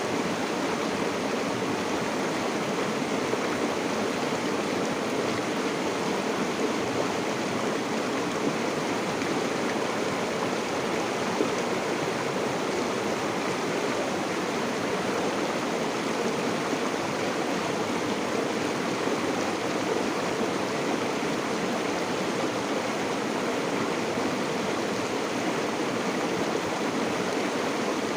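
River water flowing steadily, an even, unbroken wash of water noise.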